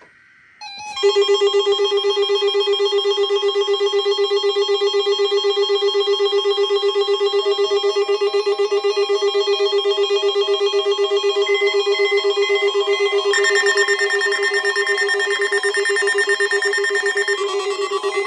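Loud electronic trilling alarm tone, several pitches stacked into a rapidly pulsing chord like a telephone ring, whose pitches shift a few times.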